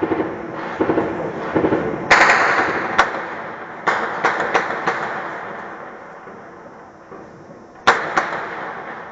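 Gunfire and shelling. A heavy blast about two seconds in has a long echoing tail. It is followed by a single crack, a quick run of sharp shots around four to five seconds, and two more shots near the end.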